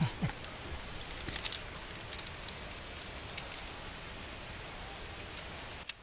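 Scattered light metallic clicks and clinks of via ferrata gear, carabiners and lanyards against the fixed steel cable, chain and rock, with a sharper click near the end, over a steady rushing background noise.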